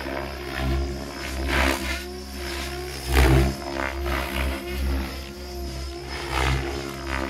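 Radio-controlled helicopter flying: a steady motor and rotor whine that swells loudly several times as it manoeuvres, loudest about three seconds in.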